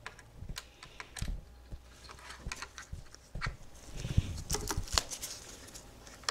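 Clicks of plastic keycaps and mechanical key switches on a Razer BlackWidow Ultimate keyboard as the keys are pressed and handled, coming irregularly and busiest around four to five seconds in.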